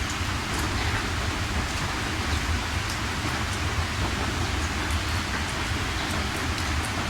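Steady heavy rain falling, with a dense even hiss, a deep low rumble underneath and scattered faint drop ticks.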